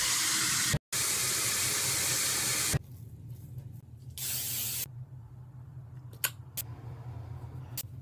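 Shower running: a steady hiss of spraying water that stops abruptly about three seconds in. A shorter burst of the same hiss follows just after four seconds, then quieter room sound with a few faint clicks.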